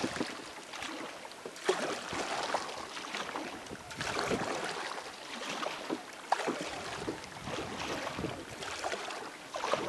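Double-bladed kayak paddle dipping and pulling through the water, stroke after stroke. There is a splash every one to two seconds, with water dripping off the blades.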